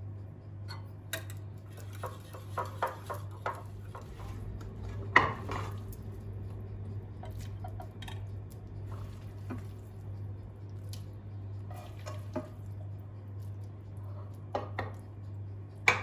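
Scattered clinks and knocks of kitchen utensils against a ceramic bowl and a pan: a wire whisk rattling in the mixing bowl and a spatula scraping and tapping as spinach goes into the egg mixture, with the sharpest knock about five seconds in. A steady low hum runs underneath.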